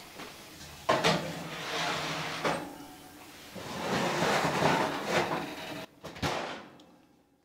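Oven door opened with a sharp clunk, a metal baking pan scraping and rattling on the oven rack as it goes in, and the door shut with a knock about six seconds in.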